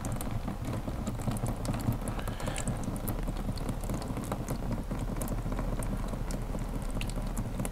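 Engine oil pouring out of the drain plug of a Honda BF200 four-stroke outboard, splattering steadily onto the plug cover and the cardboard and drain pan below, a continuous spattering hiss with many small ticks.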